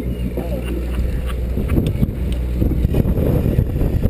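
Fishing boat's engine running with a steady low hum, under wind buffeting the microphone that grows gustier partway through.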